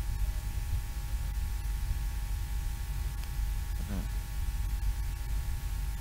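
Steady room tone: a low rumble with a constant electrical hum and hiss, with a brief faint voice about four seconds in.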